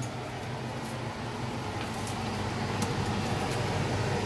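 Steady rushing of a lit gas stove burner under a wire roasting mesh, growing slightly louder toward the end, with a few faint ticks.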